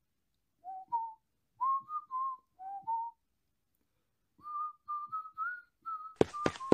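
A person whistling a short tune of clear single notes in two phrases, with a pause of about a second between them; the second phrase climbs a little. Near the end, a few sharp clicks come in over the whistling.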